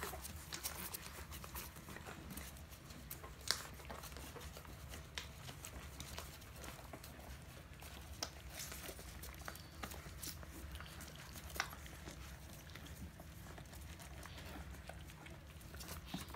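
Two-week-old mastiff puppies nursing on their mother: soft suckling clicks and smacks and the rustle of squirming bodies, scattered irregularly, with a couple of sharper clicks, over a steady low hum.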